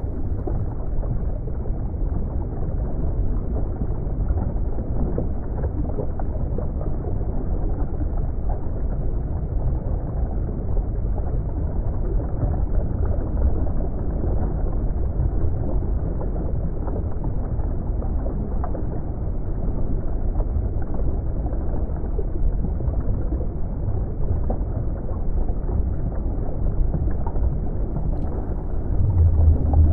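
Underwater ambience: a steady, muffled low rumble of water, with a louder low surge near the end.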